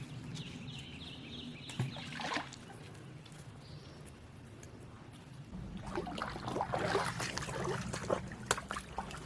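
Shallow creek water trickling. From about halfway in, irregular footsteps splash and slosh through the water.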